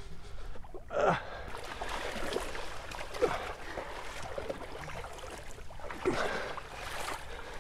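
Short gasps and heavy breaths from people straining to shove a boat grounded on a sandbar, a few times over a steady background hiss.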